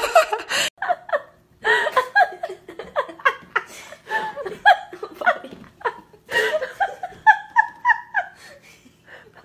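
People laughing in a long run of short giggles and chuckles, pausing briefly about a second and a half in and getting quieter near the end.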